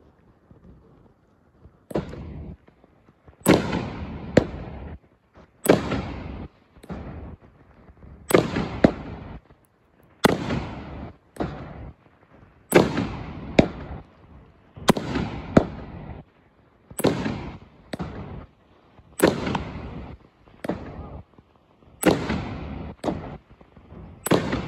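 A 16-shot, 500-gram consumer fireworks cake firing aerial shells. It starts about two seconds in, with loud reports in pairs about every two seconds, each pair the shell's lift and then its break.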